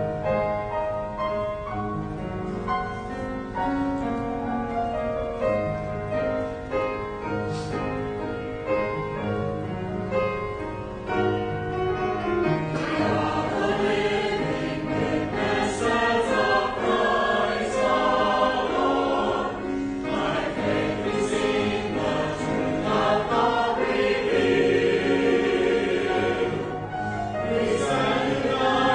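Mixed church choir singing with piano accompaniment. About 13 seconds in, the sound swells louder and fuller as more voices come in.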